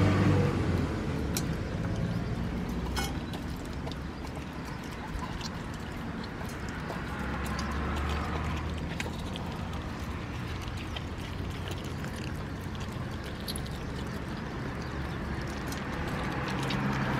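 San'in Shiba dog chewing and tearing at a chunk of raw venison: scattered, irregular clicks and smacks of teeth and jaws on the meat, over a low steady rumble.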